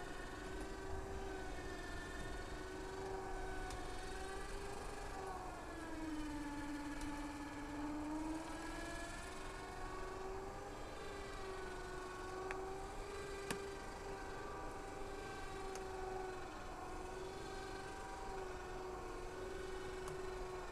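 Kawasaki Mule utility vehicle running as it is driven slowly up loading ramps, a steady whining hum whose pitch dips for a couple of seconds about six seconds in before settling back.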